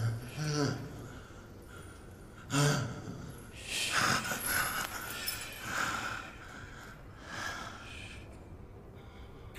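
A man breathing hard in a series of gasps and snorts, about five in all, a second or two apart, a couple of them with a short low grunt.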